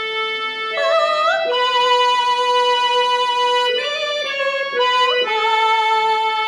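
Yamaha PSR-I455 keyboard in its harmonium voice, playing a slow one-note-at-a-time melody of long held notes that change pitch a few times, with no accompaniment.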